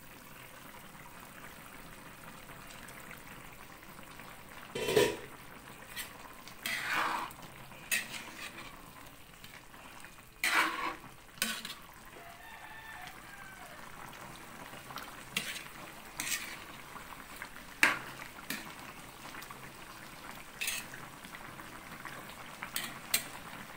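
Chicken, potatoes and carrots simmering in broth in a metal wok with a steady bubbling hiss, stirred by hand. Sharp metal-on-metal clanks and scrapes against the pan come now and then, the loudest about five, ten and eighteen seconds in.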